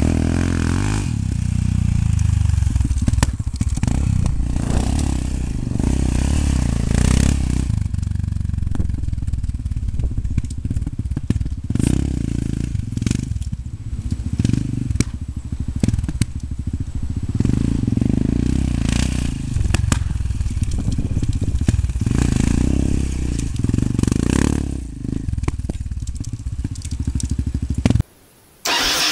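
Yamaha XTZ Ténéré's 660 cc single-cylinder engine revving and running hard as the bike circles and slides on loose dirt, with dirt and gravel crunching and crackling under the tyres. The sound drops out briefly near the end.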